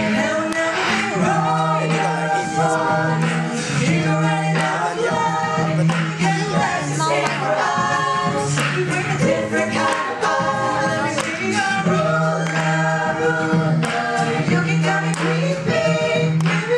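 Mixed-voice a cappella group of men and women singing into microphones: layered close harmonies over a low bass part sung in long held notes of about two seconds each.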